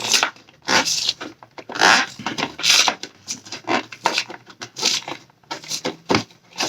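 Packaging of a Pokémon card collection box being pried and worked open by hand: irregular bursts of rustling, scraping and crinkling as it resists opening.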